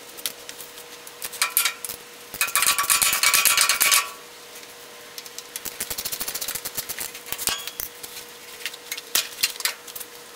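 Hand tools undoing the bolts of a Briggs & Stratton Intek engine's sheet-metal blower-housing shroud as the shroud is lifted off, with metallic clinking and runs of rapid clicking. The loudest, densest clatter comes a few seconds in, and quicker, even ticking follows.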